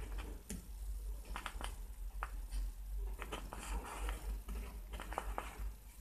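Pen writing on a sheet of paper held in the hand: a run of short scratchy strokes and light taps, irregular, with pauses between them.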